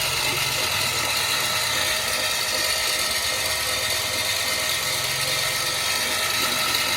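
Battery-powered mini concrete mixer running: its small electric motor and gear drive make a steady mechanical whir and rattle as the drum turns.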